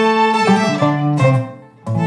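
Acoustic string band of fiddle, banjo and resonator guitar playing the closing phrase of a traditional Louisiana tune. The playing fades away about a second and a half in, and a final chord is struck just before the end.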